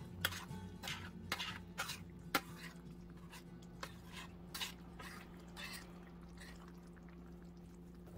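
Thick mapo tofu sauce simmering in a stainless steel skillet, bubbles popping at irregular intervals, more often in the first few seconds, over a steady low hum.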